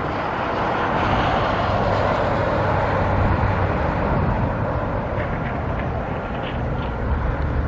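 Motor vehicle noise: a steady rumble with a broad hiss that swells a little in the middle and eases later.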